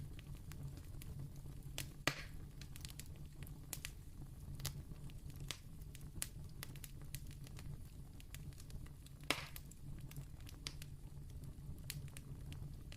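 Candle flame crackling: irregular small pops and ticks over a steady low hum, with two louder pops, about two seconds in and about nine seconds in.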